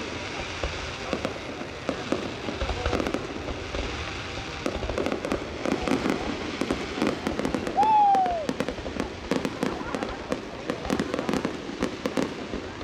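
Fireworks going off in an aerial display: a rapid run of crackles and pops over the murmur of a watching crowd. A brief whistle-like tone rises and falls about eight seconds in and is the loudest moment.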